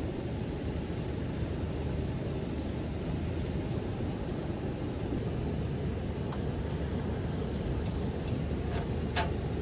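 A steady low rumble, with a few light clicks in the second half and a sharper tap about nine seconds in as the moka pot on the gas cassette stove is taken hold of.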